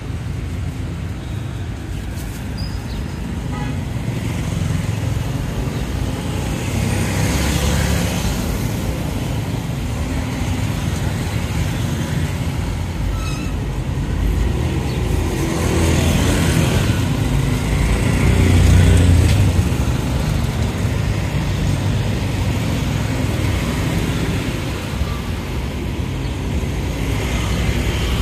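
Road traffic: vehicles passing close by with a steady low rumble that swells several times as they go past, loudest about two-thirds of the way through.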